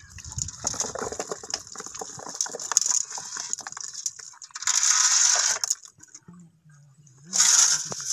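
Water and a catch of small malye fish poured from a steel bucket into a plastic basin: light clicks and splashes, then two louder gushes of pouring, about five seconds in and near the end.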